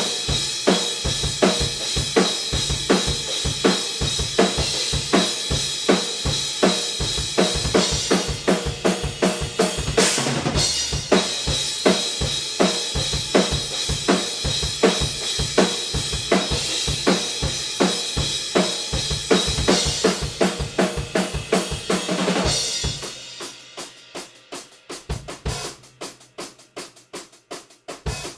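Acoustic drum kit played in a steady groove, with bass drum, snare and cymbals, heard raw through a pair of small-diaphragm condenser room mics placed far from the kit. Near the end the bass drum drops out and the playing thins to lighter, quieter strokes.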